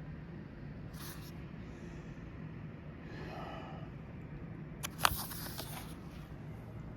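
Pages of a small paperback-style book being handled and turned: brief paper rustles, then a sharp tap about five seconds in followed by a second of rustling, over a steady low hum.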